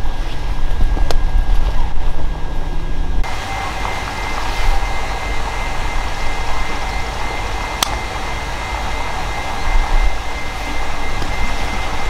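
A motor running steadily with a low rumble. About three seconds in the sound changes abruptly and a steady high whine joins it, with a few sharp clicks.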